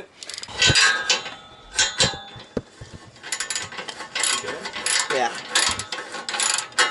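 Flex-head ratchet wrench clicking in several quick runs, densest in the second half, as exhaust bolts under a car are worked loose for a muffler removal.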